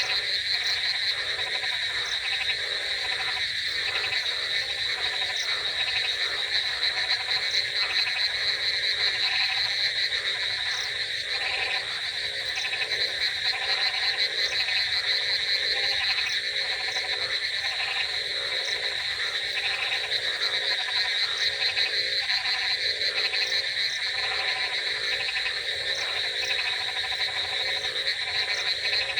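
Chorus of many frogs calling at once: a dense, steady trilling with short croaks repeating over it and lower calls beneath.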